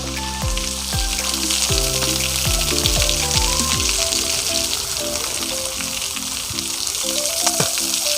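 Steady hissing rush of falling water from a waterfall, with background music playing a melody of held notes over it.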